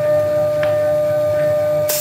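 Spindle of a CNC-converted Grizzly X2 mini mill running with a small end mill cutting grooves in 6061 aluminum: a steady high whine over a low hum. A sudden hiss starts just before the end.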